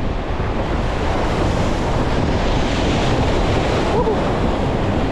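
An ocean wave surging up over shoreline rocks and washing around them, its hiss swelling in the middle, with strong wind rumbling on the microphone throughout.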